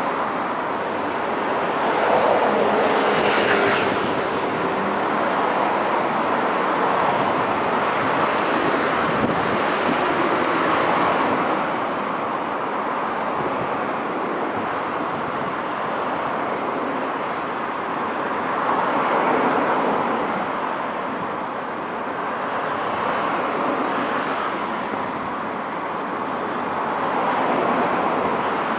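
Steady city road-traffic noise, with cars passing and the sound swelling and fading every few seconds. A brief higher squeal comes about three seconds in.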